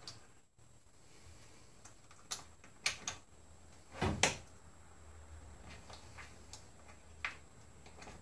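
Scattered small clicks and knocks of a hand fitting a clip onto a SharkBite push-fit water line connection at a shutoff valve under a sink, with one louder knock about four seconds in.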